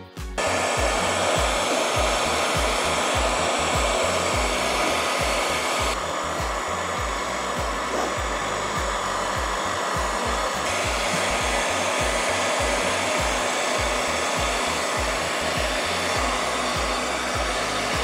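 Electric heat gun blowing a steady hiss of hot air over liquid epoxy resin, spreading the white and silver pigment into a marble pattern. It switches on about a second in and runs a little quieter for a few seconds in the middle.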